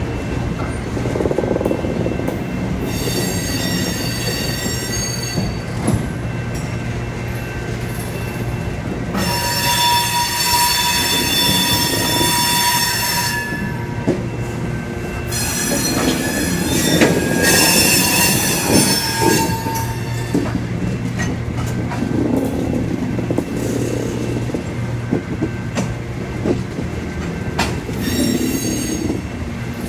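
A freight train's cars (autoracks, covered hoppers and tank cars) rolling past with a steady rumble. High-pitched wheel squeal comes and goes in stretches of a few seconds, and a few sharp clacks come from the wheels over the rail joints.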